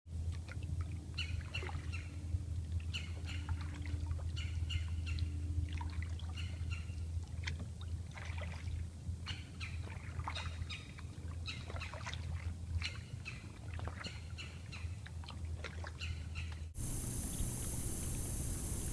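Several birds calling, many short chirps and calls overlapping, over a steady low hum. Near the end it switches abruptly to wind blowing on the microphone.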